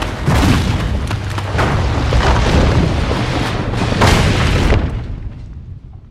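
Film sound effect of a cave rockfall: a deep, continuous rumble of collapsing rock with heavy crashes about half a second in and again around four seconds, dying away over the last second.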